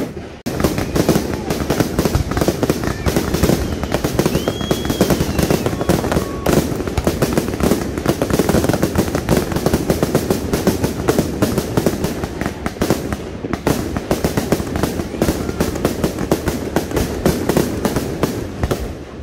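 Aerial fireworks bursting in a dense, continuous barrage of bangs and crackle, many reports a second. It starts abruptly about half a second in and thins out near the end.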